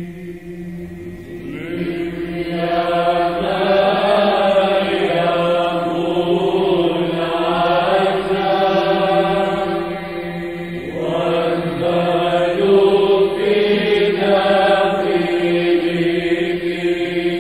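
Byzantine Orthodox church chant by a chanting choir: a melody line winding over a steady held drone (the ison). The melody comes in about a second and a half in, breaks off briefly in the middle and then resumes.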